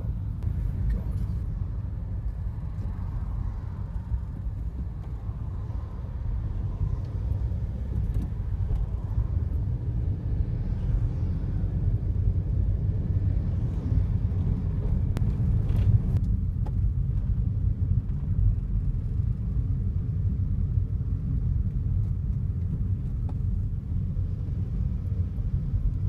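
Car engine and road noise heard from inside the cabin: a steady low rumble while creeping along in a traffic jam.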